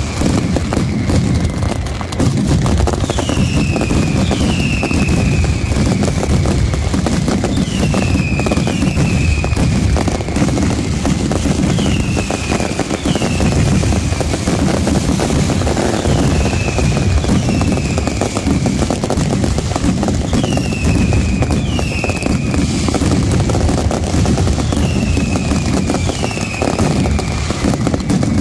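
A nighttime mascletà firework barrage: a dense, unbroken rattle of firecracker bangs and crackling. Falling whistles cut through it every few seconds, mostly in pairs.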